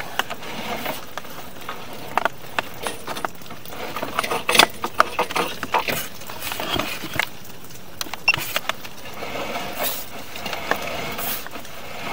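Irregular clicks and knocks of a sewer inspection camera's push cable being pulled back out of the drain line.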